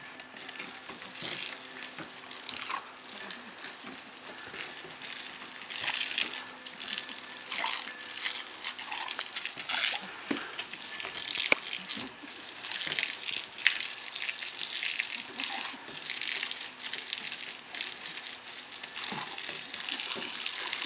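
Garden hose water spraying and splattering on a wet wooden deck as a dog snaps and bites at the stream, splashing it about in uneven surges.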